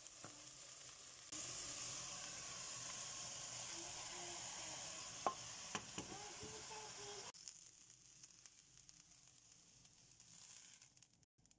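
Okra frying in oil in a pan: a steady sizzle, with two sharp knocks of a wooden spoon against the pan about five to six seconds in. The sizzle cuts off suddenly about seven seconds in.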